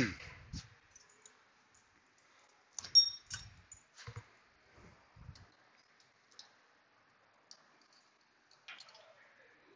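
Scattered metal clicks and knocks of brake parts and hand tools being handled during a brake pad job, loudest at the start and about three seconds in, where one clink rings briefly.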